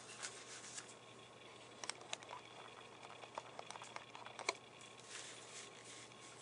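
Faint handling of a paperback picture book: fingers rustling and tapping on the paper pages as the open book is pressed flat, with a few scattered light ticks over a low steady room hiss.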